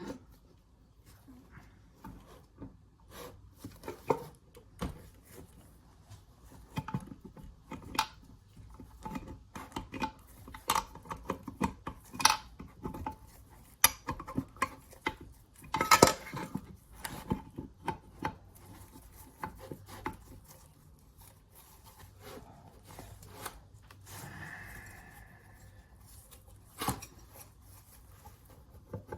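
Irregular metallic clicks and clinks of small-engine parts and hand tools being handled and fitted together during assembly of a Honda GX200-clone engine, with a few louder knocks.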